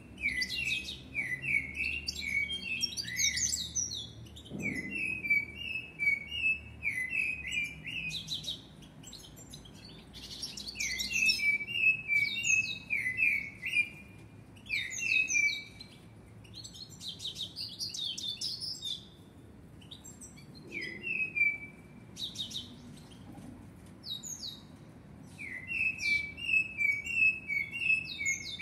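Common blackbird singing: phrases of short, falling whistled notes mixed with high twittering, a few seconds long with short pauses between them.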